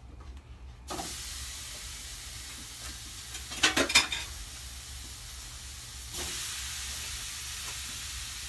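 Pieces of beef roast searing in a hot frying pan: a sizzle starts about a second in and gets louder about six seconds in. Metal tongs clatter against the pan near the middle, the loudest sound.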